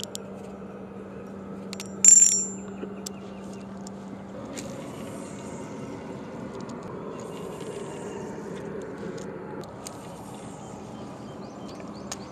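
Fishing reel drag being checked: line pulled off against the drag gives one short burst of high clicking about two seconds in, while the drag is set for monofilament line. A faint steady hiss follows.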